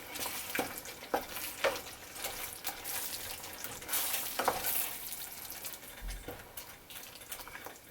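A spoon stirring chicken curry with coconut paste in a pan, with scattered scrapes and knocks against the pan over a steady sizzle.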